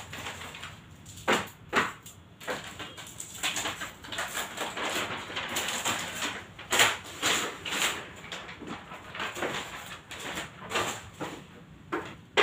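Paper posters being peeled off a wall and handled: an irregular rustling and crinkling of paper, with a few sharper crackles.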